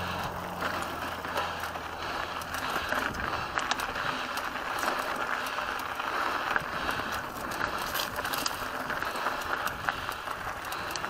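Mountain bike riding fast down a dirt single-track trail: a steady rush of tyre noise over dirt and gravel, with frequent rattles and knocks as the bike hits bumps.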